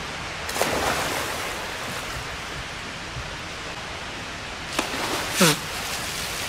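Indoor swimming pool hall ambience: a steady wash of water noise. The water noise swells about a second in. Near the end come a click and a louder splash with a short sound sliding down in pitch.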